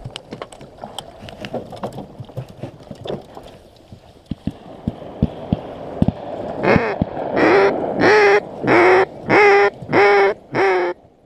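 Duck call blown in a blind: a run of seven loud, evenly spaced quacks, each dipping in pitch at its start, beginning about seven seconds in. Before it, scattered light clicks and knocks.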